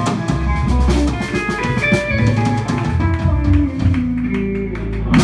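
Live band of electric guitar, bass guitar and drum kit playing a slow blues.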